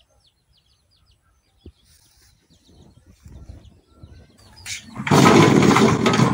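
Birds chirping faintly, then, near the end, a loud clatter of lemons tumbling out of a plastic bucket into a metal basin.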